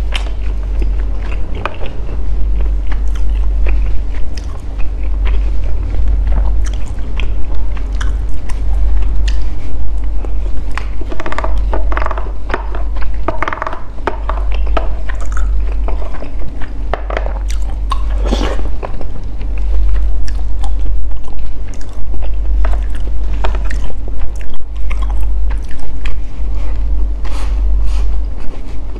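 Close-miked chewing of durian sticky rice soaked in coconut sauce: wet mouth sounds with many small clicks, louder in a few stretches, with a wooden spoon scooping from the plastic tray now and then, over a steady low rumble.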